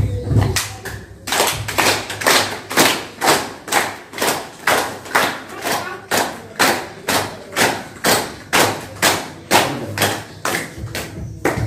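A group of people clapping their hands in unison, a steady beat of about two claps a second, as part of an ice-breaker clapping game.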